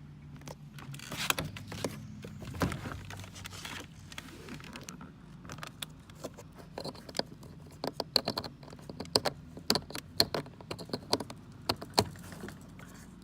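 Irregular clicks and rattles of a plastic door trim panel being handled and its wiring connector being plugged in, coming thick and fast in the second half, over a steady low hum.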